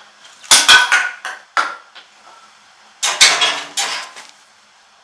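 Metal clattering: two bursts of sharp knocks and scraping rattles, about half a second in and again about three seconds in, the sound of a hand tool being handled against the heater's metal parts while stirring fire-starter gel into wood pellets.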